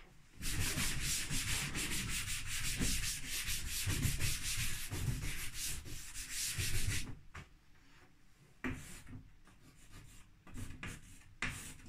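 A cloth wiping a chalkboard clean in brisk back-and-forth strokes. It stops about seven seconds in, and a few faint chalk taps and scratches follow as writing begins on the board.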